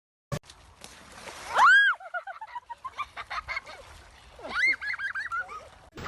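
Animal calls: a loud, high call that rises and falls, followed by a quick run of short calls, then a second high call and another quick run.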